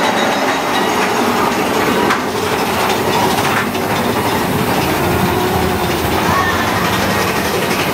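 Steady, loud running noise of a moving vehicle, with thin squealing tones gliding in and out near the end.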